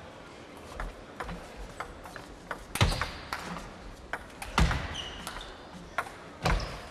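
Table tennis rally: the ball clicks off rackets and table about every half second, with three much louder hits carrying a low thud. The rally pits hard attacking strokes against a defensive player's returns.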